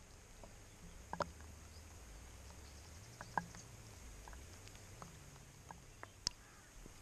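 Scattered raindrops of monsoon rain plinking into a shallow puddle: irregular single drips, a few noticeably louder, over a faint low rumble.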